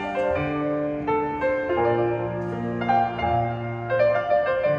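Grand piano played live: a melody over held chords and bass notes.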